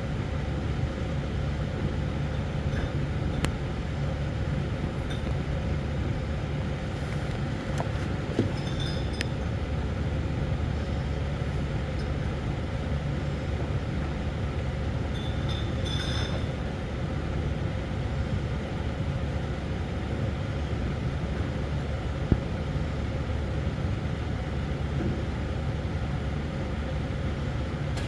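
Steady low rumble of a vehicle's engine, with a few faint clinks and ticks scattered through it.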